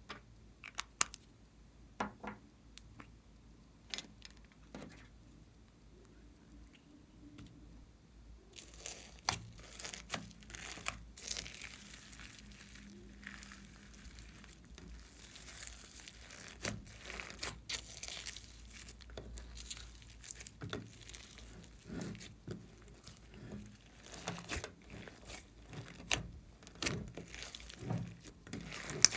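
A few sharp clicks and taps, then from about eight seconds in, hands mixing glossy slime with foam beads and glitter: steady crackling and crinkling with many small sticky pops.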